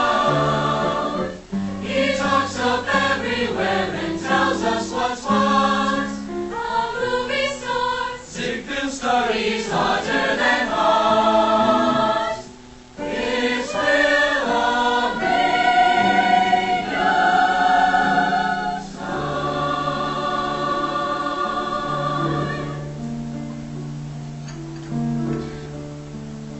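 Mixed choir of women's and men's voices singing a song in parts. Near the end the singing grows quieter on low held notes.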